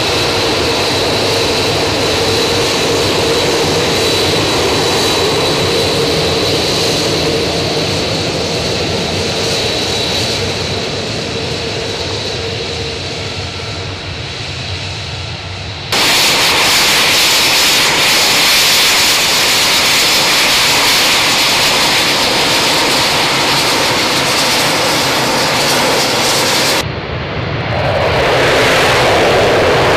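F-35A Lightning II fighter jet engine running on the runway: a steady roar with a high whine that fades as the jet moves off. About halfway through the sound jumps abruptly to a louder jet roar, and near the end there is another abrupt change to a fresh swell of jet roar.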